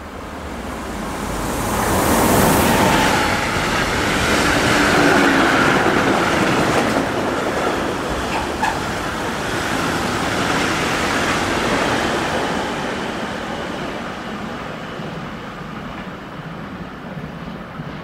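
A DB Class 187 electric locomotive hauling a freight train passes close by: the noise swells as the locomotive goes past, then the rumble of the freight wagons rolling by carries on and slowly fades as the train draws away.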